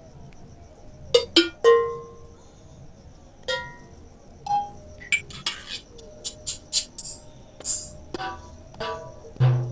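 Single percussion samples from a Roland SPD-20 tone set, tapped one at a time on a mobile octapad app. Sharp, irregularly spaced hits start about a second in and come faster in the second half, several of them with a short pitched ring.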